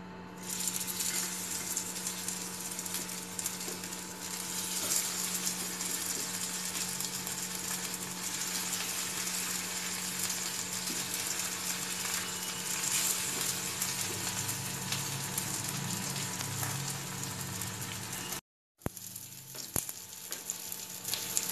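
Sabudana tikkis, patties of potato and soaked sago, sizzling as they shallow-fry in hot oil in a nonstick frying pan. The sizzle starts about half a second in, as the first patty goes into the oil, holds steady, and cuts out briefly near the end.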